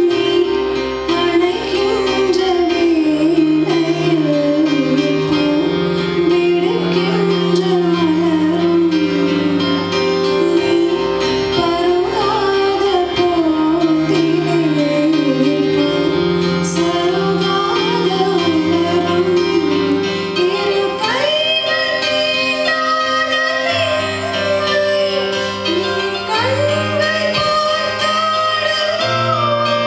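A woman singing a gliding, ornamented melody into a microphone, accompanied by an electronic keyboard playing held chords and bass notes. Her voice climbs to higher notes about two-thirds of the way through.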